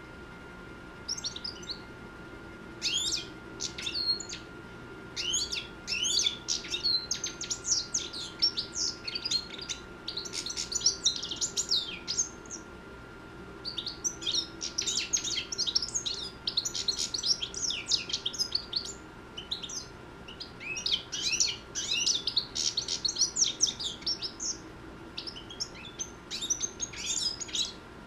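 Six-month-old European goldfinch singing: long runs of rapid, high twittering that break off twice for a second or so. A faint steady whine sits underneath.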